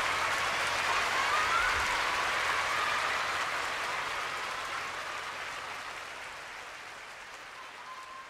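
Concert audience applauding and cheering after a rock song, fading out slowly.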